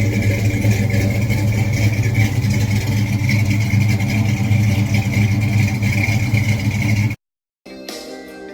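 Car engine running steadily at idle; it cuts off abruptly about seven seconds in, and guitar music starts shortly after.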